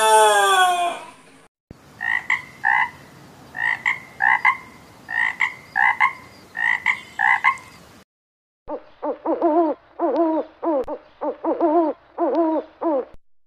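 The end of a rooster's crow trails off about a second in. Then a frog croaks in short notes, mostly in pairs, for about six seconds. After a brief silence an owl gives a quick series of short hoots that lasts to near the end.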